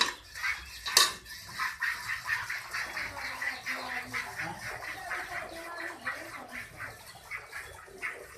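Milk squirting in rapid, rhythmic streams into a steel pail as a cow is milked by hand from both sides, about four squirts a second. A sharp knock about a second in.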